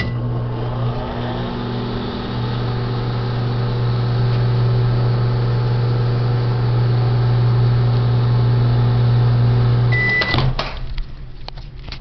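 Microwave oven running with a steady hum for about ten seconds, starting with a short beep and stopping with a beep at the end of its cycle; a few clicks follow as it stops.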